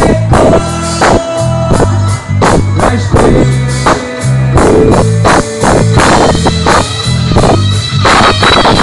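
Band music played loud over a concert PA: drums keep a steady beat under electric guitar and bass.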